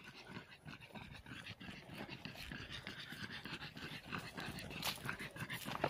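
A small flat-faced dog panting rapidly after running, close to the microphone.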